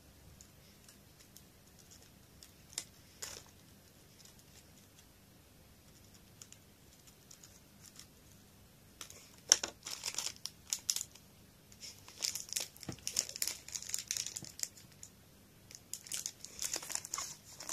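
Crinkly foil snack wrapper being handled and pulled open, in bursts of rustling and crackling from about halfway through; before that only a few small clicks.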